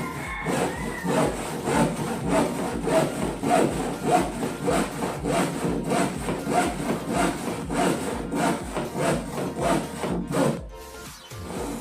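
Handsaw cutting wood with steady back-and-forth strokes, about two to three a second, pausing briefly near the end.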